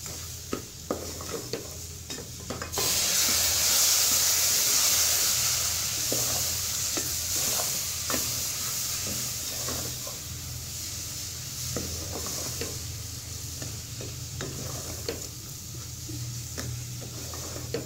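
A spoon scraping and stirring roasted semolina and sugar in an aluminium pot. About three seconds in, a sudden loud sizzle starts as milk is added to the hot mixture, then fades slowly while the stirring goes on.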